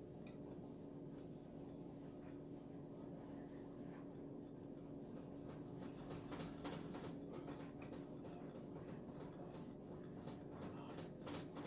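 Faint rubbing and scraping of a Rival clothes iron sliding back and forth over cotton fabric, with the strokes coming thicker about a third of the way in. A steady low hum runs underneath.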